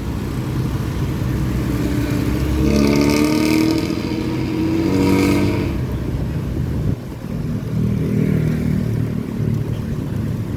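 Front-engined Hino bus's diesel engine accelerating through its loud, raspy 'ngorok' exhaust, its pitch rising twice as it pulls up through the gears, then running on at a lower note.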